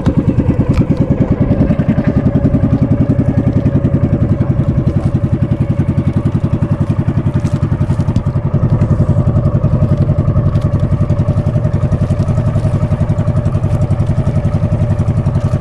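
A motor boat's engine running steadily under way, its fast, even firing pulses loud and unbroken.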